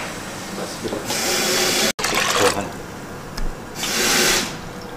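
Liquid pouring or running in two short spells, the first about a second in and the second near four seconds, with a brief break between them.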